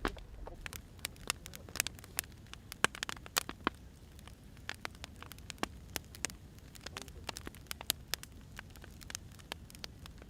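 Wood fire crackling: irregular sharp pops and snaps of burning logs over a steady low rumble and hiss.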